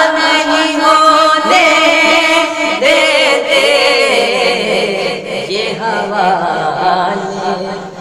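Two young men's voices singing an Urdu naat, drawing out long, ornamented notes with a wavering vibrato between the words of the verse.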